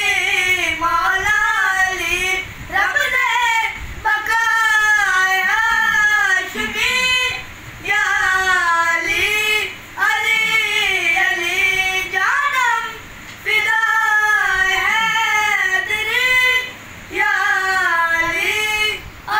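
Two boys singing a devotional song in praise of Ali (Haidar), unaccompanied, in long phrases with gliding, ornamented pitch, broken by short pauses for breath.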